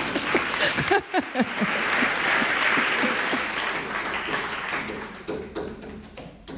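Audience applauding: the clapping swells about a second in, then thins to scattered single claps near the end.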